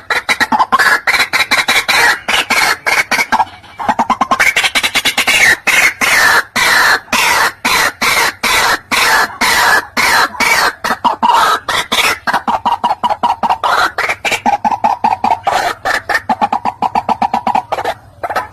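White-breasted waterhen calling: long runs of rapid, repeated notes that rise and fall in pitch, with a brief pause about three and a half seconds in.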